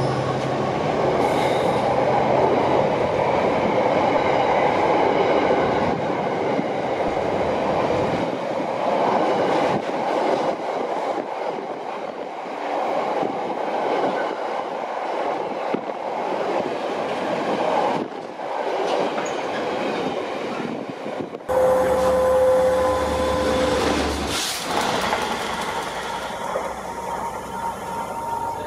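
Freight train of open box wagons rolling past close by, a steady rush of wheels on the rails. About 21 seconds in, the sound changes to a distant Class 67 diesel locomotive approaching, with a low hum, a steady tone held for about two seconds, and a single sharp click a little later.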